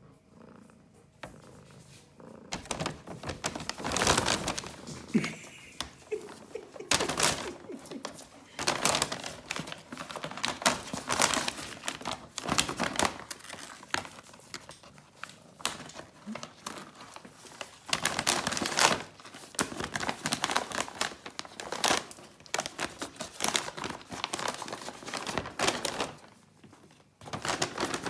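Large paper shopping bag rustling and crinkling in irregular bursts as a cat wriggles and paws about inside it, starting a couple of seconds in.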